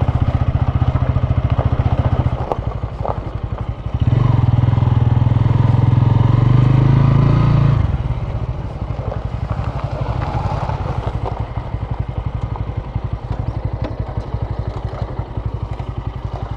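Bajaj Pulsar N160's single-cylinder engine running as the bike picks its way over a rough dirt track. The throttle opens about four seconds in and holds for a few seconds, then eases off to a lower, uneven putter as the bike slows.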